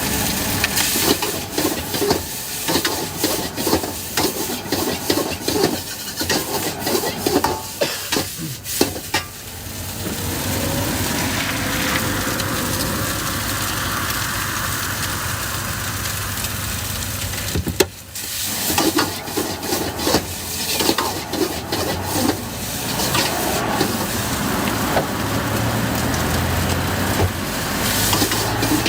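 Food being stir-fried: a metal spatula scraping and clattering quickly in the pan, then a steady sizzle for several seconds, a sharp clack, and scraping again.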